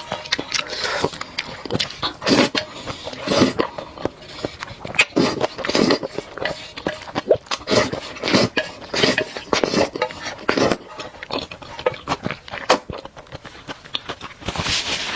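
Close-up eating sounds of a person eating spicy noodles: irregular wet mouth clicks from chewing and short noisy slurps of noodles.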